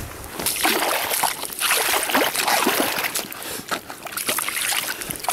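A wooden stick churning and breaking through thin ice and slush in shallow water: irregular splashing and sloshing with short crunches and knocks of ice pieces.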